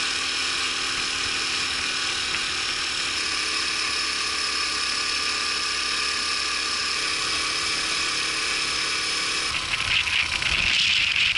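Honda Super Cub 50's small single-cylinder four-stroke engine running steadily while riding, mixed with wind rush. About ten seconds in, the sound turns rougher and louder.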